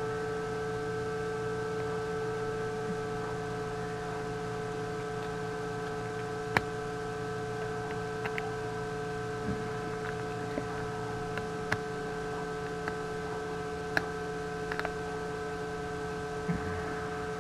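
Steady hum of a 3D printer running, made of several unchanging tones, with a dozen or so short sharp clicks of printed PLA plastic parts being handled and pressed together.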